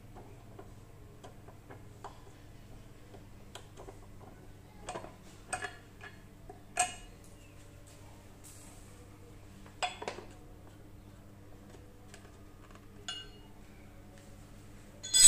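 Scattered light metallic clinks and taps, typical of small metal parts or tools being handled, a handful spread over the seconds. The clearest comes about seven seconds in, with another pair near ten seconds. A steady low hum runs underneath.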